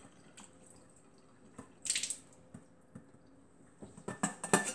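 Cooked pasta being rinsed with water at a sink: a short splash of water about two seconds in, then a quick run of knocks and clatters near the end.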